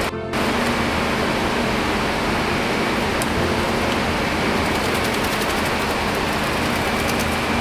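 Aroflex high-speed flatbed label die-cutting machine running steadily: an even mechanical noise, with faint rapid ticking in the second half.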